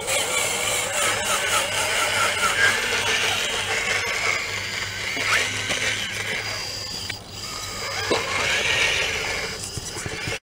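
Small electric drive motors and gearboxes of a radio-controlled scale Caterpillar 966E wheel loader whining as it drives and raises its bucket, the whine rising and falling in pitch with speed. The sound cuts off suddenly near the end.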